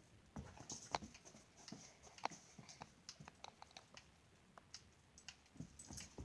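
Dog making faint, irregular small clicks and ticks at close range, scattered through a near-silent room.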